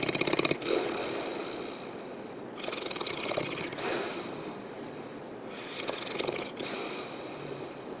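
St. Bernard snoring in her sleep, slow rhythmic breaths about every three seconds, the loudest with a rattling snore at the start.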